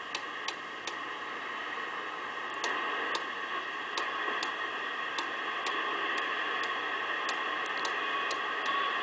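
Robyn T240D Executive tube CB radio receiving an empty channel: steady hiss from its speaker, broken by sharp clicks of static about twice a second at uneven spacing.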